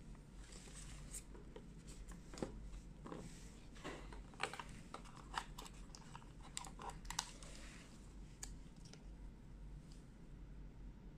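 Hands handling a smartphone's retail box and accessories: the cardboard tray and packaging clicking, tapping and rustling in a run of small knocks and crinkles from about two to eight seconds in, then settling down.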